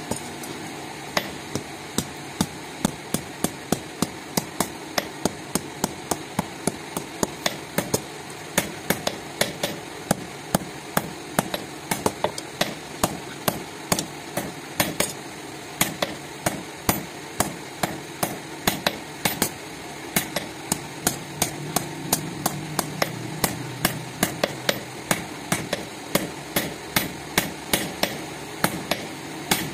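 Hand hammer blows on steel at an anvil in a steady rhythm, about two to three strikes a second, each with a short ring, as a sickle blank of old plow-spring steel is forged. A steady low hum runs underneath.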